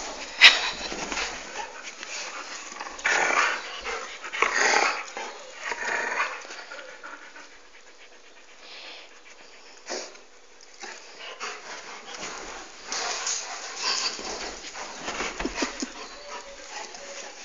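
Central Asian Shepherd dog panting close by in irregular bouts, heaviest about three to six seconds in and again near the end, with a sharp click early on.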